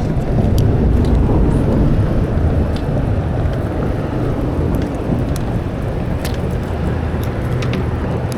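Boat motor running steadily with a low rumble, under wind and water noise and a few faint clicks.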